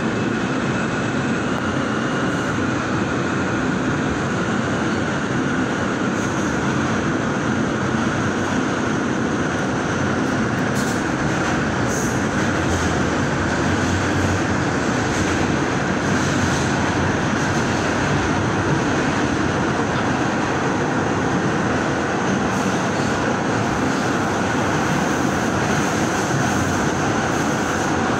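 R160A subway car running on the New York subway, heard from inside the car: a steady, loud noise of wheels on rail and motors.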